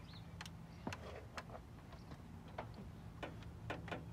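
About eight sharp, irregularly spaced clicks and ticks of hard parts being handled, over a faint steady low hum.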